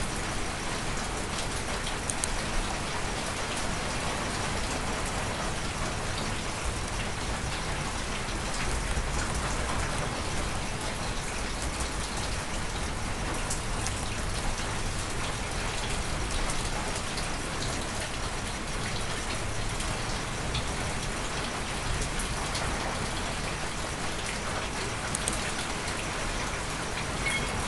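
Steady rain, an even hiss with scattered faint ticks of drops.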